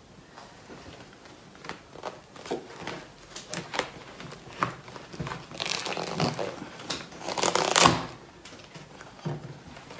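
Crinkling, crackling and tearing as gloved hands prise durian flesh out of the opened husk. The rustling grows denser and louder about six to eight seconds in.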